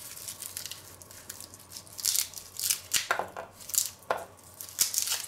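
A garlic bulb being broken apart by hand: the dry papery skin crackles and cloves snap off and drop onto a wooden cutting board, a quick series of sharp crackles and light knocks starting about two seconds in.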